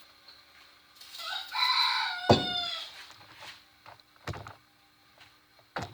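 A bird crows once, a single long call that rises and then falls in pitch, about a second in. Three short sharp clicks or knocks come at about two, four and nearly six seconds in.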